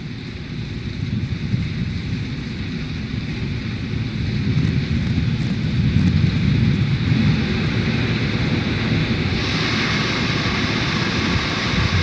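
Launch-pad ambience during the final countdown: a steady low rumble of wind on the outdoor microphone that grows slowly louder. About nine seconds in, a steady hiss joins it.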